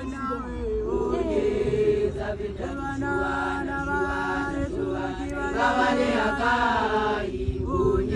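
A group of Basotho women chanting together in several voices, one holding a steady note under the others' rising and falling lines.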